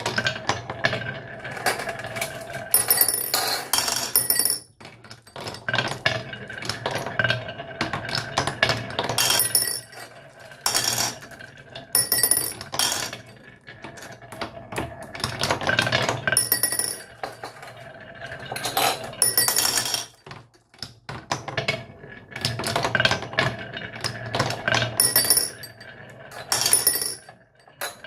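Small hard toy pieces, such as marbles or die-cast toy cars, clattering and clinking as they roll and knock along a toy track. The sound comes in dense bursts a few seconds long with short pauses between them, some bursts with bright metallic clinks, over a low steady hum.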